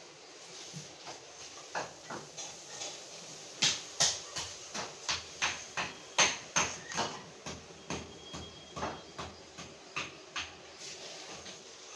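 Repeated sharp hammer blows on masonry, about two to three a second, from breaking out tiles and cement during repair of a leaking floor. The blows are loudest a few seconds in, then go on a little softer.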